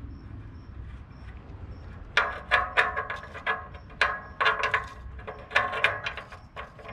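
Metal parts clanking and rattling: a quick, uneven run of sharp metallic knocks with a ringing tone, starting about two seconds in.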